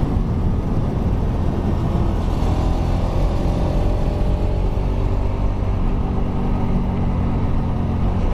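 Kawasaki Rouser RS200's single-cylinder engine running steadily under way, its exhaust without the canister.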